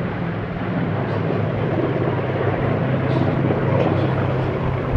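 Propeller engines of Curtiss piston-engined warbird fighters in display flight, a steady drone that dips slightly in level at first and then holds.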